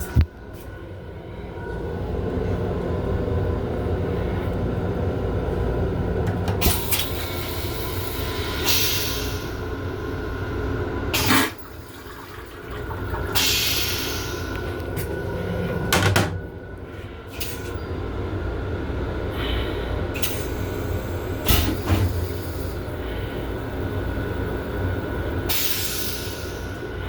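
Long Island Rail Road M7 electric railcar running, a steady rumble heard from inside the car. A low hum drops out about six seconds in. Several sharp knocks and three short hisses come through over the rumble.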